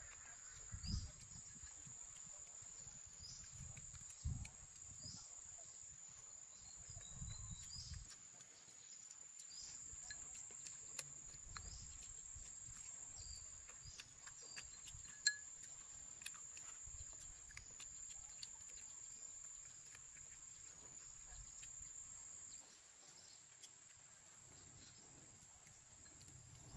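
Faint, steady high-pitched insect chorus, with a few soft low thumps and one sharp click about halfway through.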